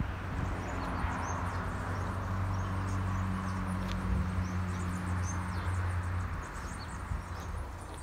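Small birds chirping over and over, with a steady low motor hum beneath that stops about six seconds in.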